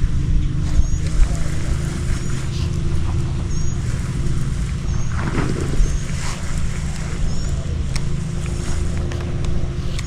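Boat motor running steadily: a low rumble with a faint steady hum, and short high chirps repeating every second or so above it.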